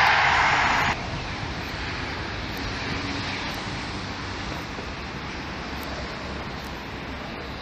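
Loud rushing noise of a passing train, cut off abruptly about a second in, then a steady low rumble of wind on the microphone and distant road traffic by the railway line.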